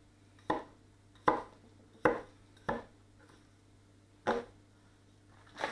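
A 230 mm Catcheside gyuto chef's knife cutting a potato, its edge knocking on a wooden cutting board. There are six sharp knocks, about one every second at first, then a pause of about a second and a half before the last two.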